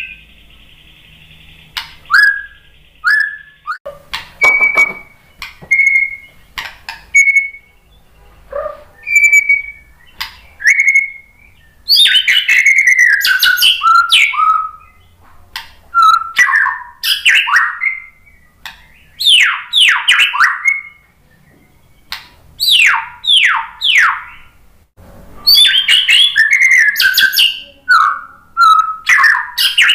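Male white-rumped shama singing in varied phrases. In the first part it gives short, clear whistled notes with pauses between them; from about twelve seconds in come louder bursts of rapid sweeping, falling notes.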